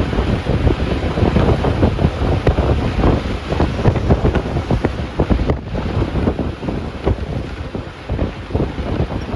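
A bus in motion, heard from inside: steady engine and road noise with wind buffeting the microphone and many short knocks.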